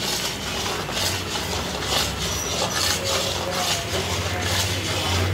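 Metal spoon stirring and scraping frothy mysore pak batter round an iron kadai, in quick strokes about twice a second, over a low steady hum.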